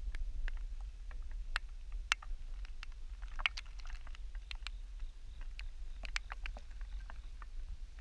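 Raindrops falling on a pond surface: scattered, irregular sharp plinks, a few a second, over a steady low rumble.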